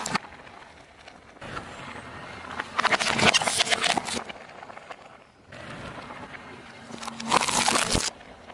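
Hard plastic objects cracking and crunching under a slowly rolling car tyre on asphalt, in two separate spells of dense crackling, one near the middle and one near the end.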